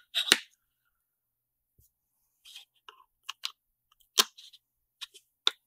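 Small sharp clicks and taps of a circuit board being fitted into a metal (magnalium) mSATA SSD enclosure: a scattered handful of brief knocks with quiet gaps between them.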